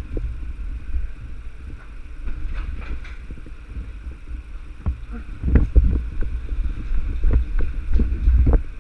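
Low rumble and irregular thumps and knocks of a body-worn action camera being jostled as the wearer moves, heavier from about halfway through.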